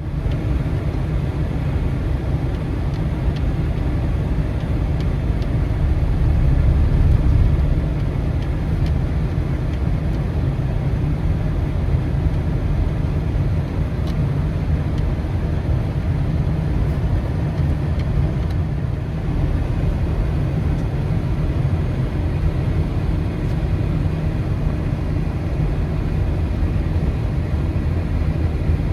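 Motor vehicle running steadily: a continuous low rumble that swells slightly a few seconds in.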